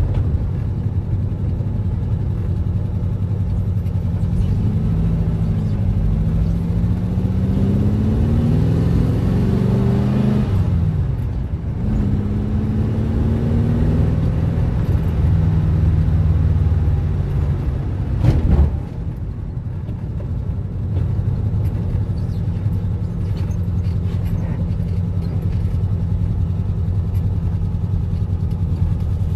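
Car engine heard while driving: it climbs in pitch as the car accelerates, drops sharply at a gear change about eleven seconds in, climbs again, then settles to a steady run. A single sharp knock comes about two-thirds of the way through.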